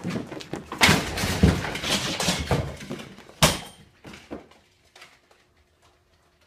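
A plastic bag rustling and crackling loudly as a cat dashes with it caught on its body, with scrabbling and thumps. A sharp knock comes about three and a half seconds in, and the noise dies away soon after.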